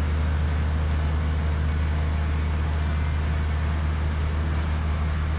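Tractor engine running steadily with a low drone while it moves a yacht on a hydraulic boat trailer.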